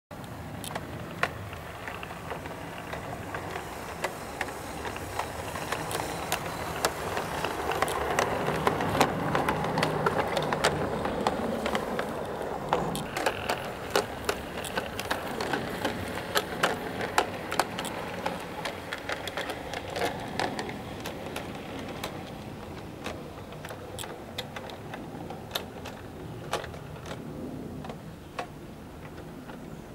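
Live-steam garden railway train running along the track: a steady mechanical rattle with many sharp clicks from the wheels on the rails. It grows louder as the train passes close, about a third of the way in, then slowly fades as it runs away.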